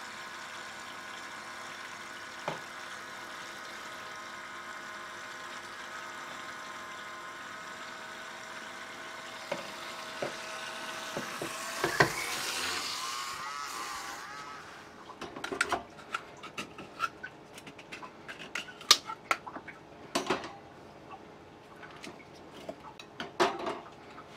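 Small battery-style pump motor of a modified GEX Multi Auto Cleaner aquarium gravel cleaner, running with a steady whine. About 12 s in its pitch wavers and it gets louder, then it stops about two seconds later. Scattered clicks and knocks of plastic parts being handled follow.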